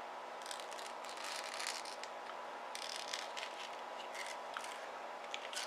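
Faint handling noises: light scraping and rustling with a few small clicks as hands work a plastic shotgun hull and lead shot pellets, over a faint steady hum.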